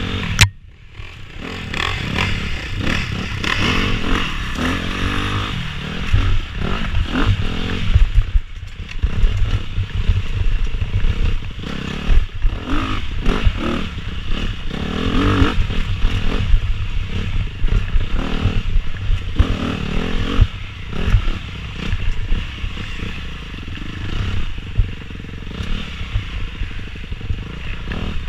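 Off-road dirt bike engine revving up and down as the throttle is worked on and off through a tight woods trail, with clatter and knocks from the bike over bumps.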